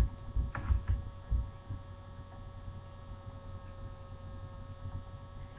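Steady electrical hum from a webcam microphone, with a few dull low thumps in the first second and a half.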